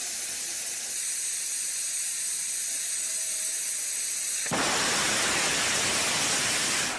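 Steady hiss of gas venting at the base of the Momo 2 rocket on its pad; about four and a half seconds in, the rocket engine ignites with a sudden, louder rushing noise that holds on.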